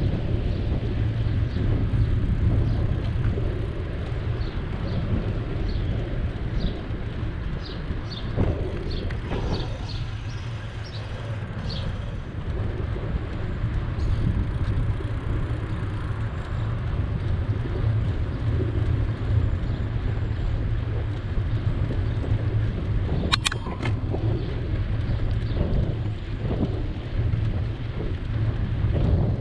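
Steady low rumble of wind and road noise from a moving bicycle, with passing city traffic. Faint short high chirps come between about five and twelve seconds in, and there is one sharp click about three quarters of the way through.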